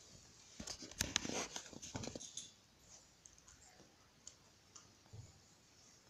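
Rustling and a quick cluster of clicks over the first couple of seconds as a hand handles young puppies, then faint scattered ticks.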